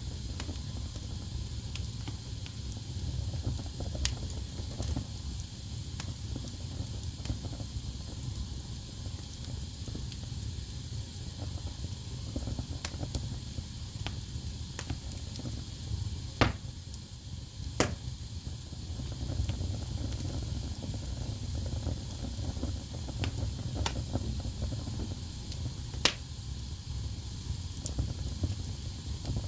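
Wood fire burning in a fireplace: a steady low rumble and hiss from the flames, with scattered crackles and a few sharp pops, the loudest a little past halfway and again near the end.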